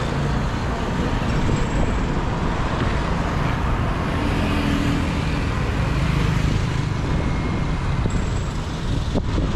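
Steady road traffic noise from passing vehicles.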